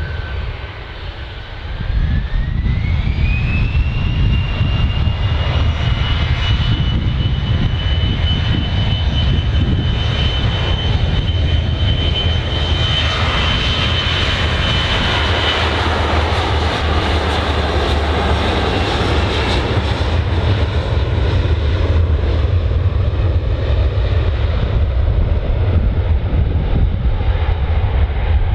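Jet airliner engines at high power: a whine rises in pitch about two seconds in and then holds steady, over a loud, continuous roar that swells in the middle.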